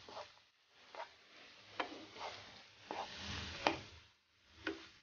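Wooden spatula stirring chopped onions sautéing in oil in a nonstick frying pan, scraping and tapping against the pan about six times, with a longer scrape a little past halfway.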